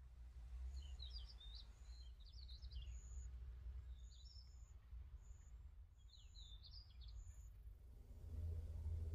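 Small birds chirping in short warbling phrases, faint, over a steady low outdoor rumble, with a thin high note repeated about once a second. Near the end the chirping stops and a louder low rumble rises.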